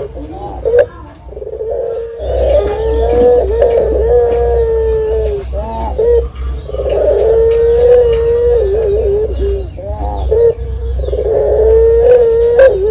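Ringneck dove (puter) cooing: long drawn-out coos, each held on one pitch for a few seconds and ending in a quick wavering run of short notes. Three such phrases come about four seconds apart, the first starting about two seconds in.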